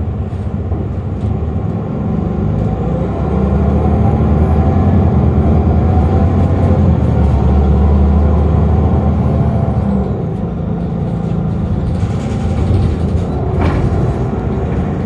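City transit bus running, its engine rumble swelling louder from about three seconds in and easing off around ten seconds, with a faint high whine that rises and then falls over the same stretch. A short knock comes near the end.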